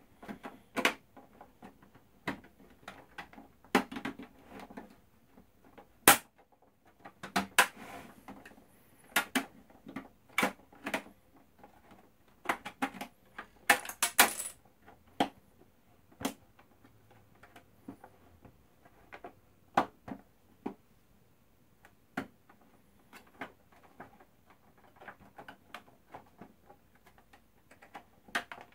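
Plastic pry tool working along the seam of an Xbox One console's plastic case: irregular sharp clicks and snaps as the case's clips are forced apart, with one longer scrape about halfway through.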